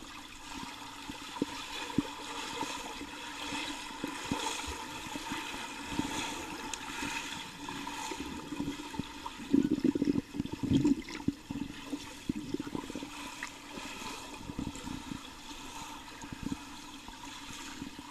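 Pool water churning and bubbling around a swimmer's kicks, heard from underwater, with many small muffled knocks and a louder surge about halfway through.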